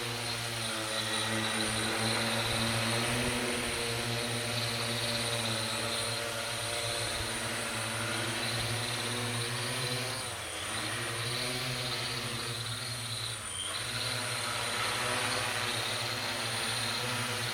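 Brushless motors and propellers of a 3D-printed DJI Inspire 1 clone quadcopter hovering: a steady buzzing whine made of several tones over a rushing hiss. It dips briefly in level and pitch twice in the second half as the throttle eases.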